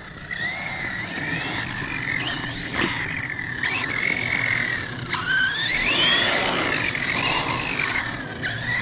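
High-pitched whine of small electric motors, wavering up and down in pitch with the throttle and loudest about six seconds in.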